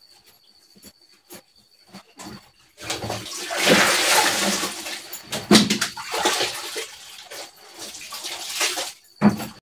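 Water sloshing and splashing as wet clothes are lifted and handled in the wash tub of a twin-tub washing machine. It starts about three seconds in, after a few light clicks, and swells and fades unevenly.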